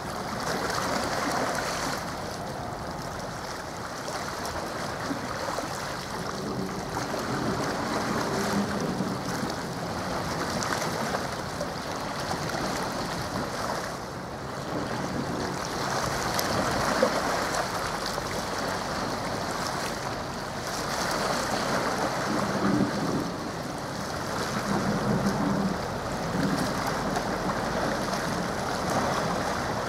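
Water waves washing against the shore, the noise surging and easing every few seconds, with some wind on the microphone.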